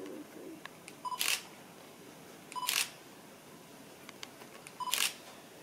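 A camera beeping as it locks focus, each beep followed at once by the shutter firing; three shots about two seconds apart.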